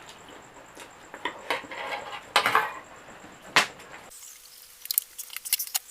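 Close-up eating sounds of a mouthful of fried instant noodles (mie goreng): wet chewing with a run of small smacking clicks, and a few louder short noisy bursts in the middle.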